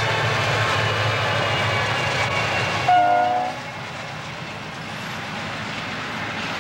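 Diesel locomotives passing close by, their engines droning under wheel and rail noise. About three seconds in comes a brief horn toot of about half a second, then the sound drops to a quieter, more distant train passing.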